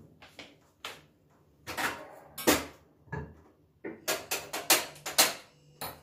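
Sharp clicks and knocks of kitchen things being handled at a gas stove, scattered at first, then a quick run of about five in a little over a second near the end. A faint low hum sits underneath in the second half.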